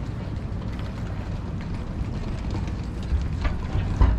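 Steady low rumble of outdoor city ambience, with a few dull thumps near the end.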